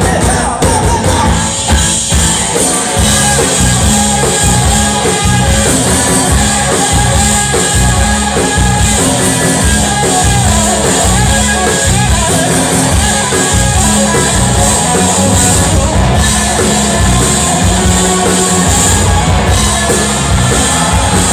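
Live rock trio playing loud: electric guitar, bass guitar and drum kit.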